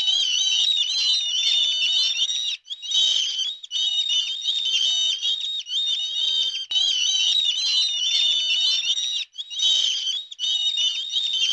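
Small birds chirping and twittering in a dense, continuous chorus of short, high notes, cut off abruptly a few times.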